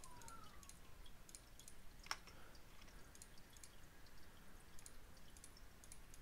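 Faint clicking of computer keyboard keys and a mouse, irregular and scattered, with one louder click about two seconds in.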